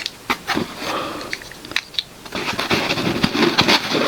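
Hard plastic 3D-printed toy parts being handled, with repeated small clicks and taps, then a denser clatter of scraping and knocking in the second half.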